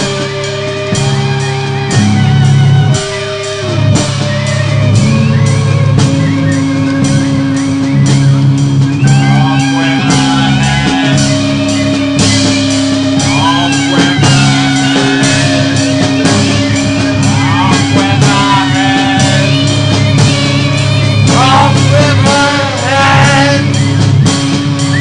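Rock-style music with guitar and a drum kit keeping a steady beat; a singing voice comes in about nine seconds in.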